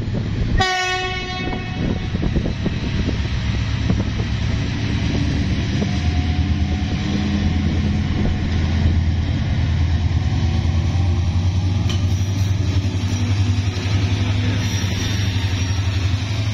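A short train horn blast about half a second in. Then an EMD diesel-electric locomotive's engine runs steadily, growing louder as the train draws near and passes close by.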